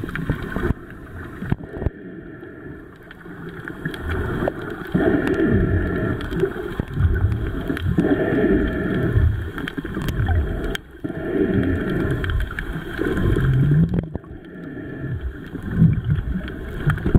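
Muffled water noise picked up by a camera held underwater, with sloshing and gurgling that swells and fades every second or two and a few short clicks.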